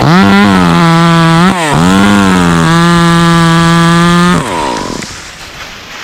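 Two-stroke chainsaw revved to full throttle, easing off briefly about a second and a half in, then held steady at high revs before being let off and falling back near the end.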